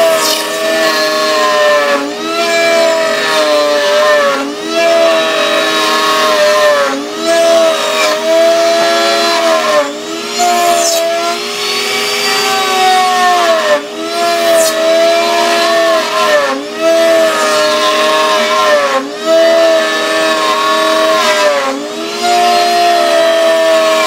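Router in a router table cutting the teeth of a wooden gear as the blank is steered along a template. The motor runs at a steady high pitch that sags and recovers every two to three seconds as the bit takes each cut.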